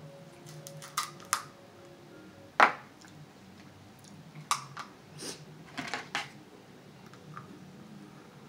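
King crab leg shell being cracked apart by hand and snipped with scissors: a run of sharp cracks and clicks, the loudest a little over two and a half seconds in and a quick cluster around five to six seconds.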